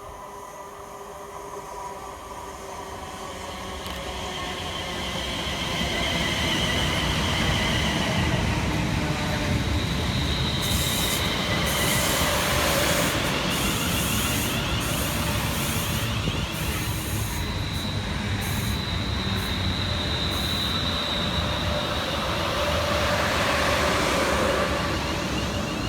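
Two coupled Class 350 Desiro electric multiple units arriving and slowing: a steady rail rumble with thin high-pitched wheel and brake squeals that come and go. It grows louder over the first several seconds as the train draws in.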